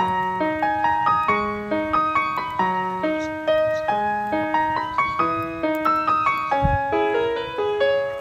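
Background piano music: a gentle melody of evenly paced, softly struck notes.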